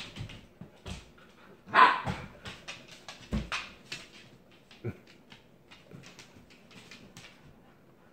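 A dog barks once, loudly, about two seconds in. Light, scattered clicking follows, like dog claws on a hardwood floor.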